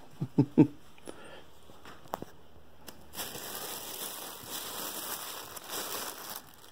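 Plastic gift wrapping crinkling as it is handled, starting about three seconds in and stopping shortly before the end, after a few brief sounds at the start.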